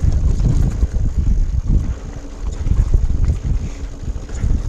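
Hardtail mountain bike rattling and clattering over jagged rocks on a descent, with wind rumbling on the microphone.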